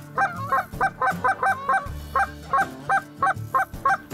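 A quick run of short Canada goose honks, about four a second.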